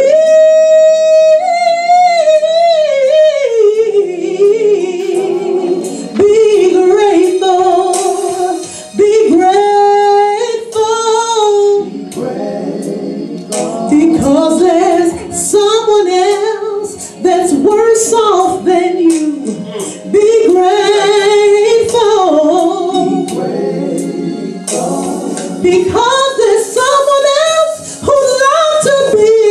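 A woman singing a gospel solo into a microphone. She holds one long note at the start, then sings runs that rise and fall.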